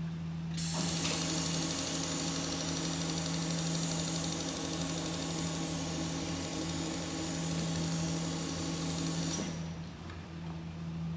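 Industrial sewing machine stitching a side hem on a lined curtain, starting about half a second in, running at a steady speed for about nine seconds, then stopping abruptly. A steady low hum lies underneath.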